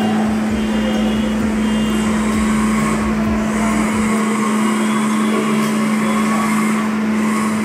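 Electric blender motor running steadily at one pitch, blending cashews, sesame and flax seeds for plant milk. A deep rumble under it drops away about four seconds in.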